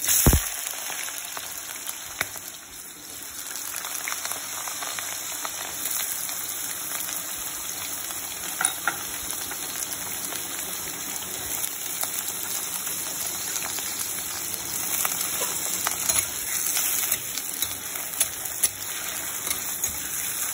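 Potato batons dropped into hot mustard oil in a kadhai, a loud burst of sizzling as they hit, then frying with a steady hiss. Occasional clicks and scrapes of a spoon stirring them through the oil.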